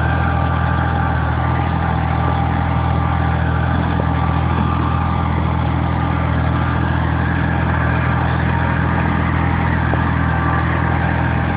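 Small Kubota tractor's engine running steadily under load while it pulls a tined plough through soil.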